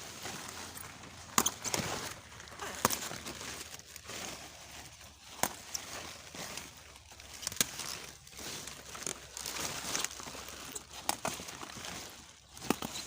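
Kale leaves rustling as they are handled and snapped off the stalks, with irregular sharp snaps every second or so.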